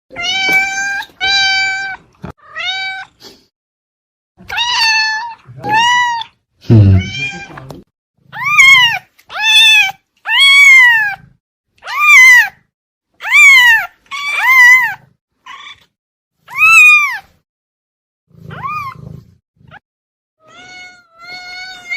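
Domestic cat meowing over and over, about fifteen calls with short gaps between them. The first few are short and level in pitch; the later ones are longer, each rising and then falling.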